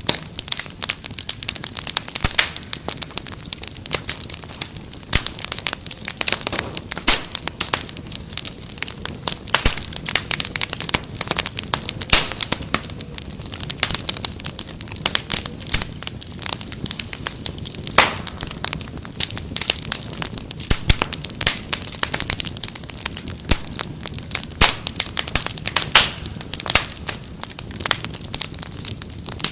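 Wood fire crackling steadily, with a rapid irregular scatter of sharp snaps and pops over a low hiss.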